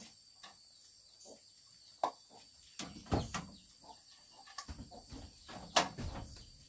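Rural outdoor ambience: a steady high insect drone, with scattered sharp clicks and two spells of low knocking and rustling, about three seconds in and again near the end.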